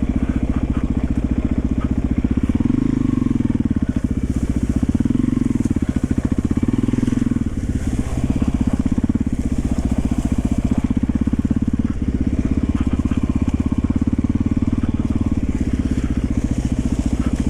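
1991 Yamaha XT350's single-cylinder four-stroke engine running steadily as the bike is ridden, its exhaust beat even, with small swells in throttle a few seconds in.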